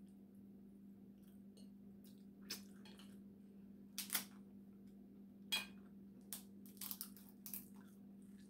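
Cooked Dungeness crab shell cracked and snapped apart by hand, a series of short, sharp cracks that come more often in the second half.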